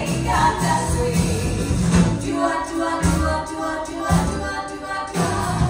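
A female vocal trio singing with a live band: bass, drums and a pop-style backing.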